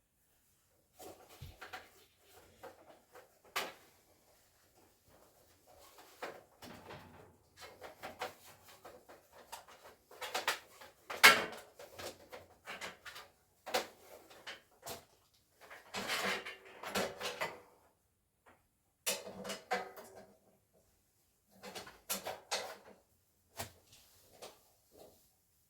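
Hands working cables and connectors at a network patch panel: irregular plastic and metal clicks, taps and rustling, with one sharp click about eleven seconds in.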